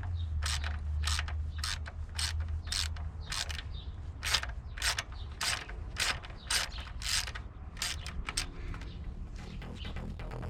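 Ratchet wrench clicking in a steady rhythm, about two clicks a second, as it is worked back and forth, over a faint low hum.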